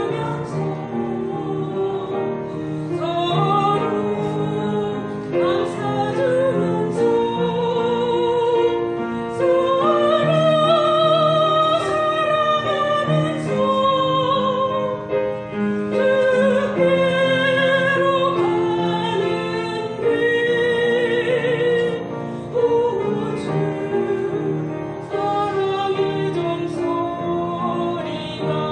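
A woman singing a Korean hymn with vibrato over a held instrumental accompaniment.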